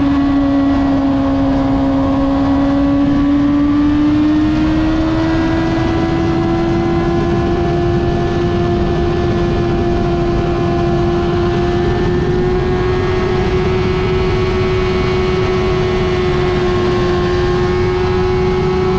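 2007 Suzuki GSX-R600's inline-four engine running at high revs while riding, its pitch climbing slowly over the first several seconds as the bike gathers speed, then holding nearly steady. A constant low rush of wind runs under it.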